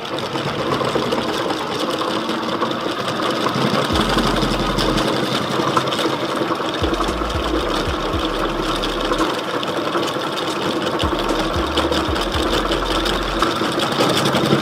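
Cricket bat handle-wrapping machine running steadily, spinning the bat handle as the wrapping is wound on: a continuous motor whir with rapid fine clicking.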